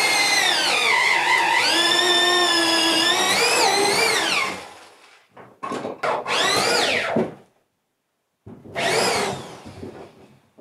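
A Skil half-inch drill with a long bit boring through wooden wall studs. The motor's pitch sags and recovers as the bit bites for about four and a half seconds, then winds down. After a pause come two shorter bursts of drilling.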